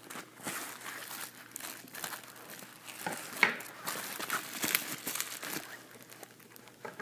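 Bubble wrap and plastic packing tape crinkling and rustling in irregular crackles as a padded package is handled and cut open, loudest about three and a half seconds in.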